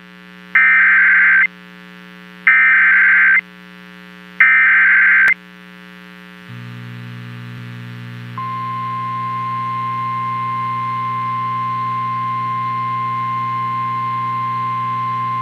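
Emergency Alert System activation over a radio stream: three one-second screeching bursts of digital header data a second apart, then the steady high-pitched attention tone of a National Weather Service warning starting about eight seconds in. A low hum comes in under it about six seconds in.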